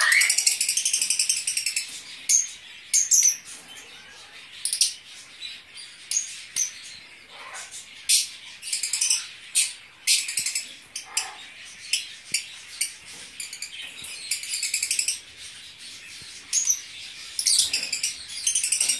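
A group of Fischer's lovebirds chattering: many short, high-pitched chirps, some in fast runs.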